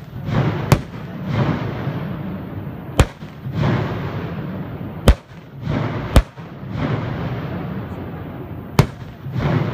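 Ground-crack fireworks (jiware hanabi) going off: five sharp, loud bangs at uneven intervals, with rushes of crackling noise swelling up between them.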